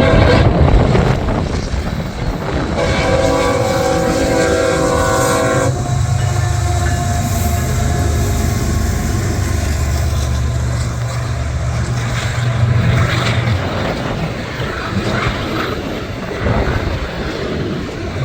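CSX freight train passing close by: the lead GE ES44AC-H locomotive's five-chime K5HL air horn sounds for about three seconds a few seconds in and cuts off. The locomotives' diesel engines then run past with a low steady drone until about two-thirds of the way through, followed by the clatter of the cars' wheels on the rails.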